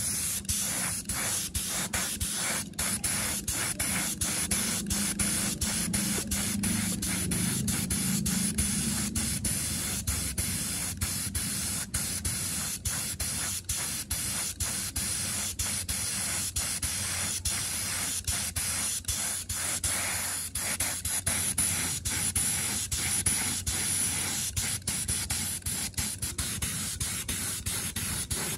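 Compressed-air paint spray gun spraying a coat of paint: a steady loud hiss broken by many very short gaps.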